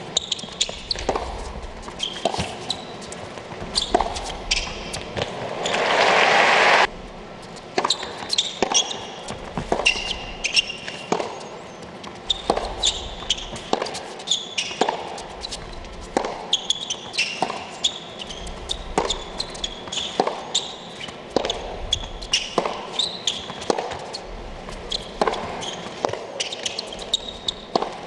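Tennis ball struck by racquets and bouncing on an indoor hard court, sharp hits about a second apart ringing in a large arena. A short burst of crowd noise comes about five seconds in and cuts off suddenly about seven seconds in.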